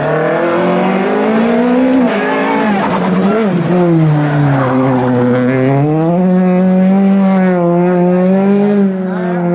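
Rally car engine at high revs, its pitch climbing and dropping sharply twice as the car changes gear and lifts off, then held high and steady under full throttle.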